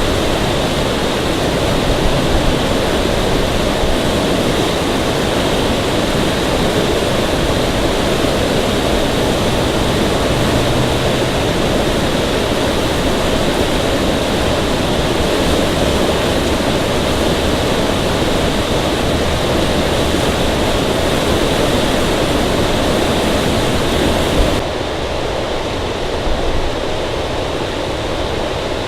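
Steady, loud rushing noise with no clear tones or events, like water or wind on the microphone. About 25 seconds in it turns duller and a little quieter.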